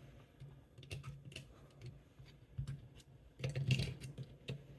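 Scattered small metallic clicks and taps as a steel lever is worked out of an opened lever lock with pliers, with a louder scrape about three and a half seconds in.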